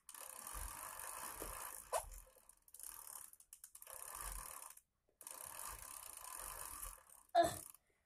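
A child's bicycle pedalled in place: its chain and spinning wheel make a mechanical whir in four spells of one to two seconds with short breaks between. A brief louder vocal-like sound comes near the end.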